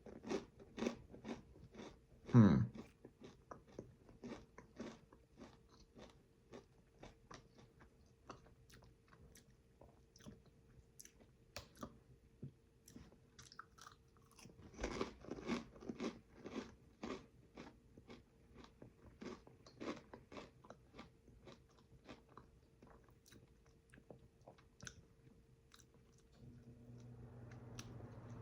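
Close-up crunching and chewing of dill pickle rice crisps: a long run of short, irregular crackles. There are louder bites near the start and again about halfway through.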